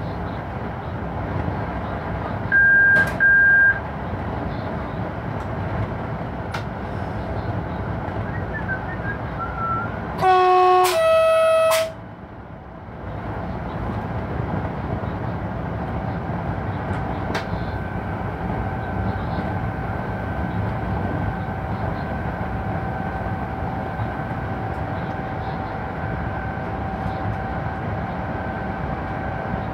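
Steady rumble of an electric locomotive running, heard from inside its cab. About 3 s in there are two short high beeps. About 10 s in the locomotive's horn gives two notes, a low one and then a higher one, for about a second and a half. From about 16 s a faint steady whine rides over the running noise.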